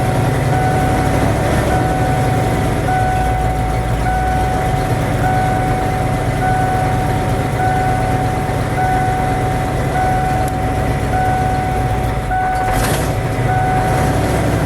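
1988 Ford F250's 5.8-litre V8 running at a rough idle that does not want to stay running, the sign of the idle fault being chased down (throttle position sensor suspected). A steady electronic beep repeats about every two-thirds of a second over the engine, and there is a single sharp click near the end.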